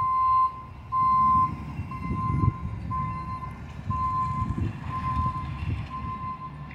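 A truck's back-up alarm beeping at about one beep a second, the first two beeps loudest, over the low rumble of a truck engine.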